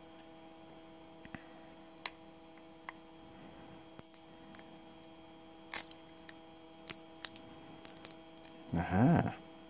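Scattered sharp clicks and small scrapes of a screwdriver prying and picking at the broken resin and components of a motorcycle regulator/rectifier unit, about half a dozen over the stretch, over a steady electrical hum. A short burst of a man's voice near the end.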